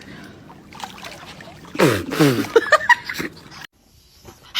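A person's voice: a long cry sliding down in pitch, followed by short broken laughing sounds, then an abrupt cut to near silence.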